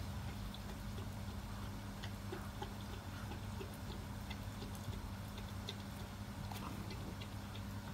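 Puppies chewing and tugging at a rope toy: faint scattered clicks and ticks over a steady low hum.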